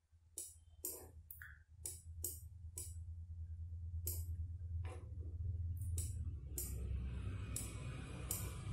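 Background music with a steady beat of sharp cymbal-like ticks over a low bass line, growing louder and fuller about two-thirds of the way through.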